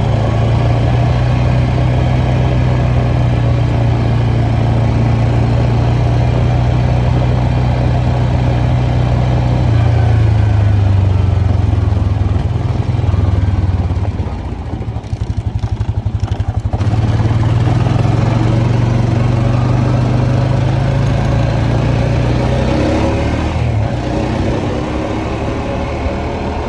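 ATV engine running while being ridden: a steady engine drone that eases off for a couple of seconds about halfway through, then picks back up and climbs in pitch near the end.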